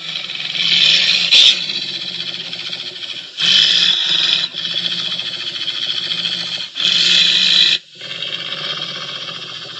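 Monster growling sound effect: a continuous growl with three louder swells, about a second in, around three and a half seconds and near seven seconds.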